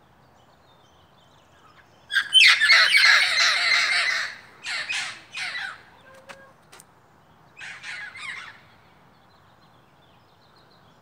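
Wild Amazon parrots squawking: a loud run of harsh calls lasting about two seconds, starting about two seconds in, then two shorter squawks, and a group of three quieter squawks near the end.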